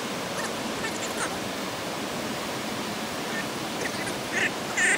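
Steady rushing of churning river water below a lock and dam, with a few short, sharper sounds near the end.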